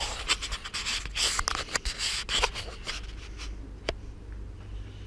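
Close rustling, rubbing and scraping from hands and cloth working right by the microphone for about three seconds, then one sharp click near four seconds in.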